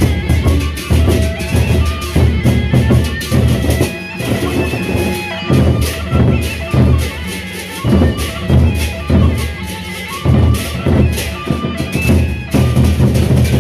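Sasak gendang beleq ensemble playing live: large double-headed barrel drums beaten in loud surging phrases, with clashing cymbals and ringing gong tones over the drumming.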